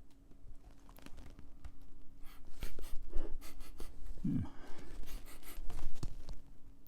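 Handling noise while working on a computer board at the bench: scattered clicks, taps and rubbing or scraping. A brief low falling sound comes about four seconds in, over a faint steady hum.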